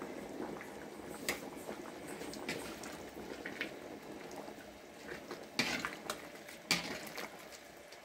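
Chicken curry bubbling at a boil in a large metal pot, with a few sharp clacks of a ladle against the pot, the loudest a little past halfway.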